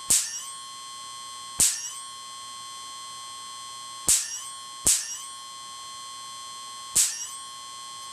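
Spark discharges of a 12,000-volt Cockcroft-Walton generator snapping across an air gap between a wire and a bolt: five sharp cracks at uneven intervals of about one to two and a half seconds. Under them runs a steady high-pitched whine that briefly dips after each crack.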